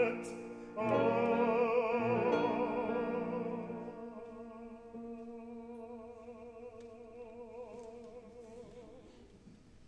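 The close of a classical art song with piano: a long held note with vibrato over sustained chords, the chords dropping out about four seconds in and the note fading away over the following seconds.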